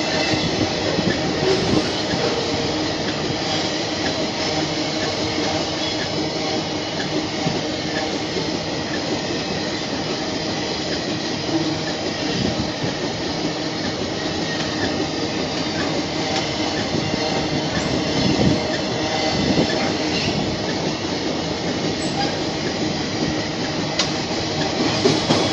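Loaded iron-ore gondola wagons of a long freight train rolling past close by: a steady rumble and rattle of steel wheels on the rails, with a faint thin wheel squeal above it.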